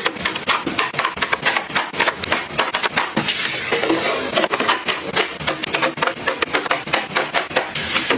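Rapid clicks and clacks of small hard containers and items being handled and set down, several a second, with a brief rustling stretch a few seconds in.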